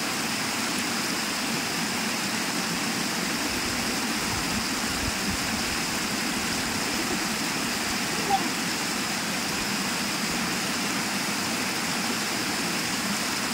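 Steady rush of shallow water pouring down a sloping rock face, with one brief sharp sound about eight seconds in.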